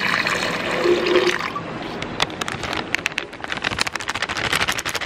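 Water poured into an empty plastic blender jar, splashing on the blades and stopping about a second and a half in. Then a run of crisp crackles as a plastic bag of coconut milk powder is tipped and shaken over the jar.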